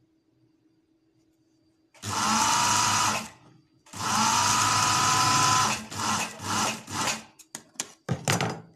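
Electric sewing machine stitching a trouser hem in bursts: two runs of a second or two, the motor whine rising as each starts, then a string of short stabs near the end.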